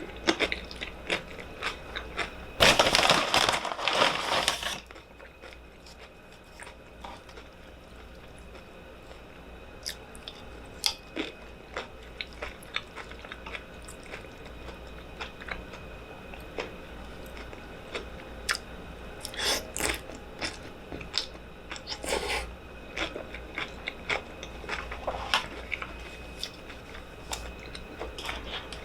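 Close-miked eating: a loud crunch of about two seconds, a tortilla chip being bitten and chewed, about three seconds in, then quieter chewing with many short wet mouth clicks and smacks.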